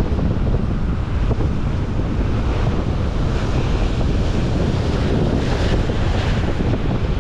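Strong wind buffeting the microphone over the steady wash of ocean surf, with the hiss swelling briefly about five seconds in.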